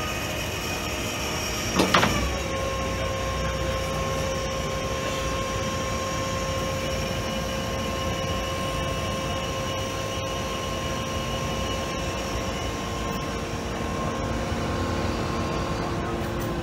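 Construction machinery running with a steady mid-pitched whine over a background rumble; the whine drops sharply in pitch about two seconds in and then holds.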